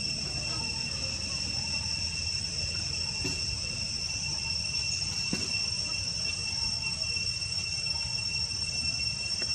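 Steady insect chorus holding two unbroken high-pitched tones, over a low background rumble.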